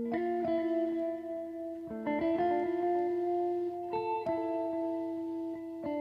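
Background music: held chords that change about every two seconds.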